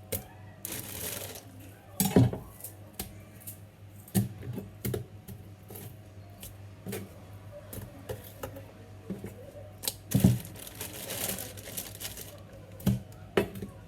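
Kitchen food-preparation handling: irregular knocks and taps on a work surface, with heavier thumps about two seconds in and about ten seconds in, and two longer spells of rustling, over a steady low hum.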